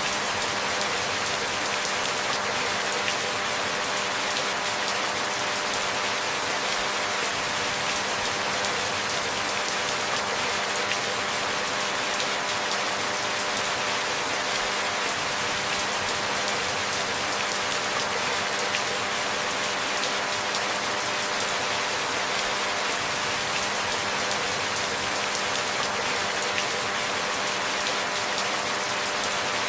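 Steady rain falling, a dense, even patter of drops that does not change in strength.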